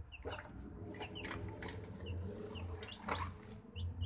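Cardboard and plastic packaging rustling and crinkling as it is handled, with many short high chirps of birds in the background.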